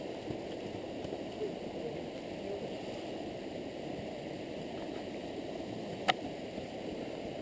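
Steady rushing wind noise on the camera's microphone, with one sharp click about six seconds in.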